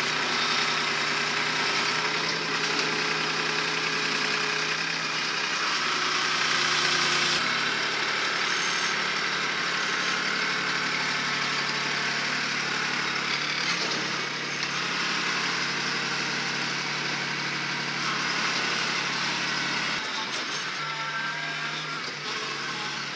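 Kubota B2261 compact tractor's three-cylinder diesel engine running steadily as the front loader pushes dirt, its engine note shifting a couple of times as the tractor works back and forth.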